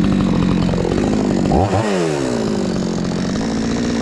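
Chainsaw engine running steadily, with a quick rev about halfway through that winds back down.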